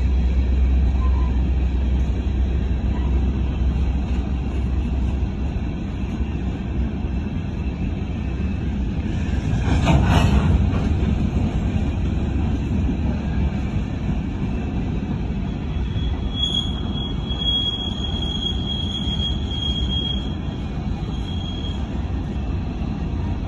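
Coal train's hopper cars rolling past, a steady rumble of wheels on rail with a louder swell about ten seconds in. A thin, high wheel squeal sounds for several seconds past the middle.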